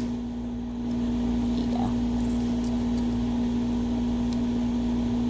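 Steady mechanical hum on one constant low tone, with a few faint clicks as a folding pliers multitool is handled and opened.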